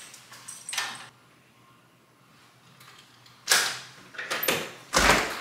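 A front door's lock and handle being worked as the door is opened: a soft rustle, then several sudden clunks and a rattle, the loudest about three and a half seconds in and just before the end.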